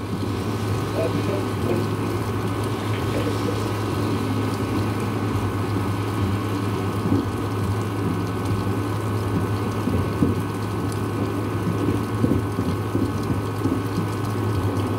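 Steady rain during a thunderstorm, an even wash of noise over a constant low hum.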